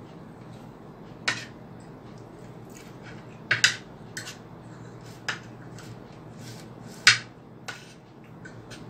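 Spoon and fork clinking and scraping against a plate while eating: about seven sharp clinks, the loudest two about three and a half and seven seconds in.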